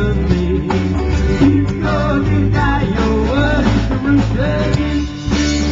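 Live rock band playing: electric guitar over bass and drums.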